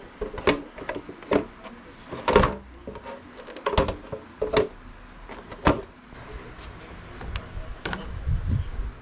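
About a dozen irregular knocks and clicks, sharp and short, some with a brief ring, as of hard objects being handled and set down.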